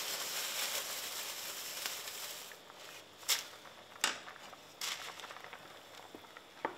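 Pot of rice boiling with a frothy hiss after roasted vermicelli noodles are dropped in, the hiss fading after about two and a half seconds. Then come a few sharp clicks and knocks, the last as a wooden spoon starts stirring the pot.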